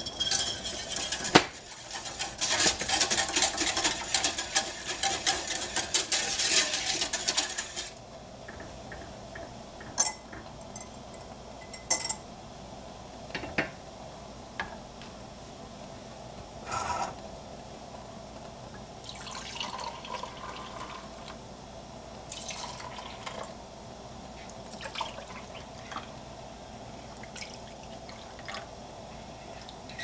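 A wire whisk beating quickly against the inside of a small stainless steel saucepan of milk for the first eight seconds. Then scattered clinks and knocks of pans and utensils, and near the end milk poured from the saucepan into glass jars.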